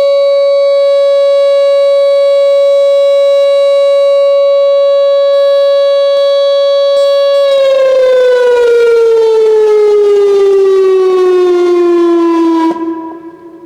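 Whelen WPS-2910 electronic outdoor warning siren sounding its steady Alert tone, a single held pitch. About halfway through the pitch slides smoothly downward as the siren winds down, then cuts off sharply near the end.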